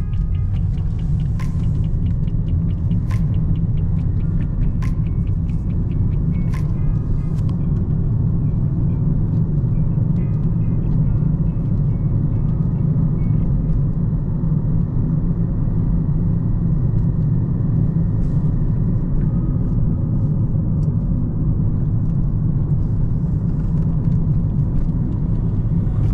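Inside the cabin of a 2013 Kia Ceed with the 1.4-litre, 99 hp engine and manual gearbox, driving along: a steady low rumble of engine and road noise. In the first seven seconds there are a few sharp clicks about a second and a half apart.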